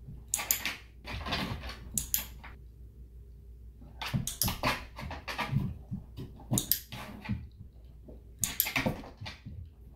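A German Shepherd moving about a plastic training platform on carpet and taking treats from a hand: clusters of short scuffling, noisy bursts with quieter gaps between them.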